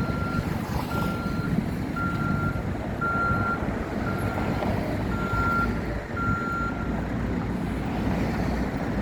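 Vehicle reversing alarm beeping, one single-pitched beep about every second, stopping about seven seconds in, over a low steady rumble of engines and traffic.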